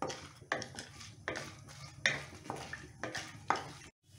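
Wooden spatula stirring and scraping a kadai of chana dal, dried red chillies and mustard seeds frying in oil, in about seven separate strokes.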